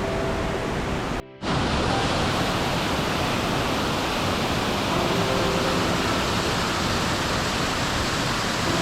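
Steady rushing noise of flowing water, like a waterfall or fast river, with quiet background music. The sound drops out briefly at a cut about a second in.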